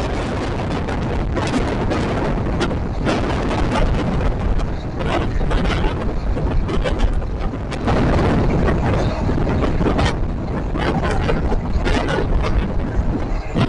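Running noise of a passenger train heard from on board: a steady rumble of wheels on rail with rushing wind, and frequent sharp clicks and knocks from the track. It grows a little louder about eight seconds in.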